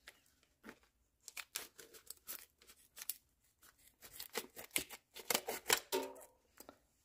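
Plastic vacuum-sealed meat package crinkling and crackling as it is handled and cut open with scissors, in a run of irregular sharp crackles and snips that gets busier over the last few seconds.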